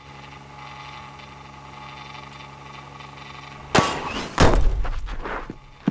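Baseball pitching machine humming steadily, then a sharp crack as it fires a ball about two-thirds of the way through, followed moments later by a heavy, deep impact that rings on for about a second.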